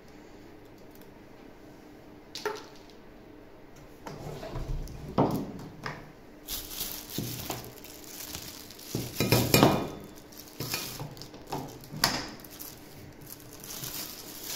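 Handling noise from a vacuum's corrugated plastic suction hose and metal wand tubes as they are unwrapped and moved about: plastic wrapping rustling, the hose knocking and the metal tubes clinking. It is quiet for the first few seconds apart from a single click.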